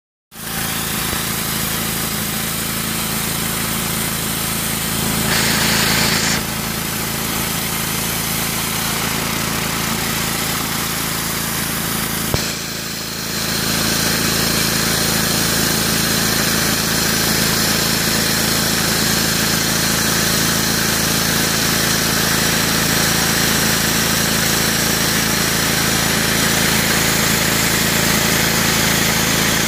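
Whirlaway rotary flat surface cleaner hissing steadily as its spinning spray bar jets high-pressure water onto block paving, over the steady hum of the pressure washer's Honda GX390 petrol engine. A short click and a brief dip come about twelve seconds in.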